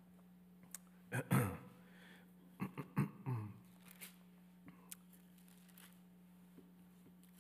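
Bible pages rustling and being handled at a pulpit microphone, in a few short irregular bursts with small clicks, over a steady low hum.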